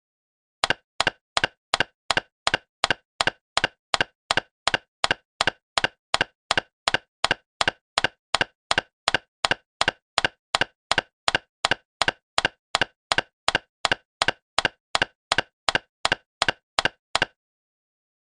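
Button click sound effect: the same short, sharp click repeated evenly about three times a second, stopping near the end.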